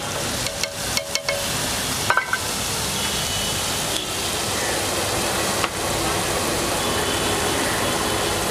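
Paneer cubes sizzling in oil on a large flat griddle (tawa), a steady hiss, with a few short clicks in the first couple of seconds.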